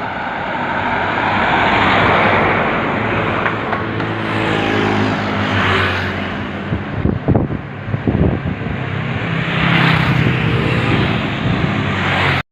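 Heavy road vehicles: a bus's diesel engine running with a steady low hum while vehicles pass in swells of noise about every four seconds, with a few sharp knocks about seven to eight seconds in.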